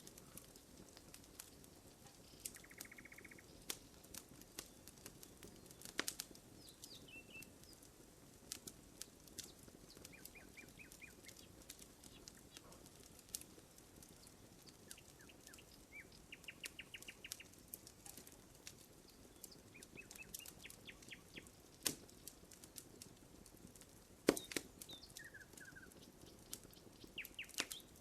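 Burning wood crackling in a campfire with irregular sharp pops, the loudest near the end. Birds sing short, rapid trills in the background several times.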